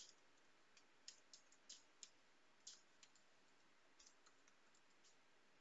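Faint keystrokes on a computer keyboard as a password is typed: about a dozen soft, irregularly spaced clicks.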